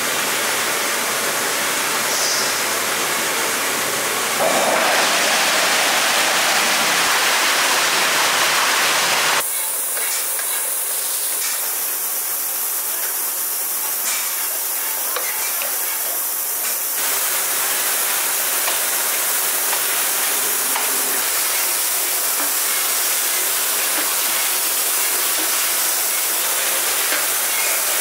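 A steady hiss beside a stainless tank of makgeolli mash, louder from about four seconds in. About nine seconds in it changes abruptly to the steady hiss and light clicking of an automated makgeolli bottling and capping line running.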